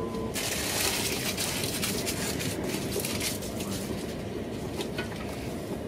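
Inside a Rhein-Ruhr Express (Siemens Desiro HC) electric multiple unit running at speed: steady rumble of the wheels on the rails. A sudden rush of hiss comes in about a third of a second in and eases off after about three seconds.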